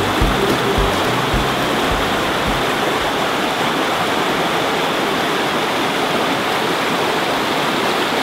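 A rocky stream rushing steadily over boulders in small cascades. A music track with a beat fades out in the first two or three seconds, leaving the rush of water alone.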